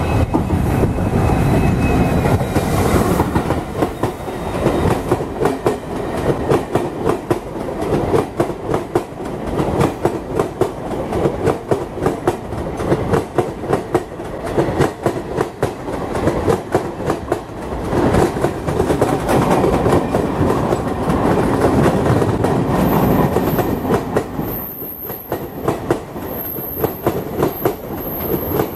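Express train passing at speed close by: a locomotive rumbles past first, then a long rake of passenger coaches goes by with a fast, steady clickety-clack of wheels over the rail joints.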